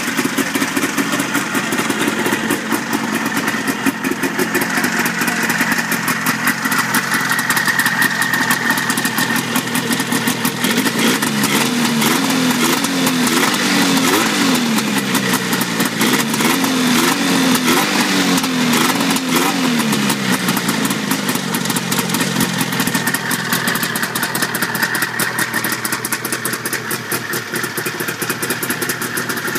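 A 1980 Arctic Cat Panther snowmobile's two-stroke 440 engine idling on its newly fitted VM carburetor, blipped up in quick revs several times in the middle and then settling back to a steady idle.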